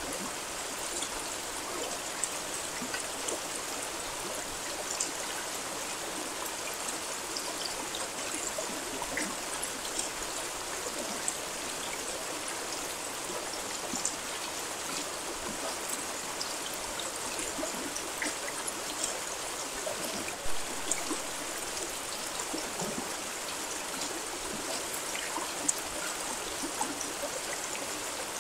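Steady rain: an even hiss with many small, separate drops ticking through it and a slightly louder moment about twenty seconds in.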